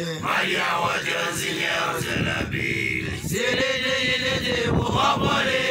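Basotho initiation graduate chanting loudly in a high young male voice, with long held notes that slide up and down in pitch.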